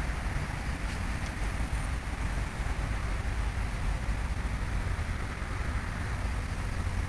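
Wind buffeting the microphone, a steady low rumble over the even hum of distant road traffic.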